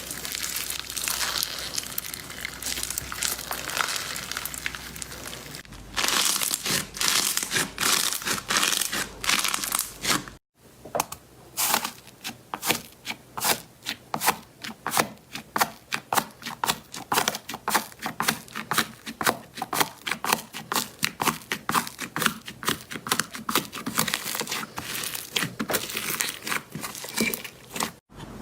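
Slime being pressed and worked by hand, making dense crackling and clicking sounds. After a cut about ten seconds in, it gives a long run of sharp pops, two or three a second.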